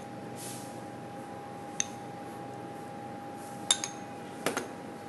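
A metal spoon clinking against a small ceramic ramekin while butter cubes are scooped out: a few light clinks, one about two seconds in and a quick pair and another single one near the end. A steady hum runs underneath.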